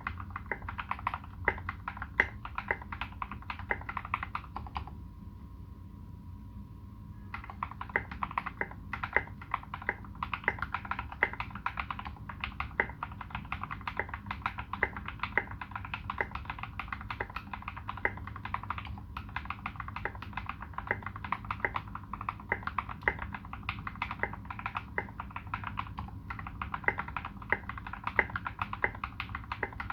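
Continuous typing on a custom Space65 mechanical keyboard with modded tactile Turquoise Tealios switches, SA-profile keycaps and tuned Cherry screw-in stabilizers: a quick, even run of key clacks. The typing pauses about five seconds in and resumes two to three seconds later.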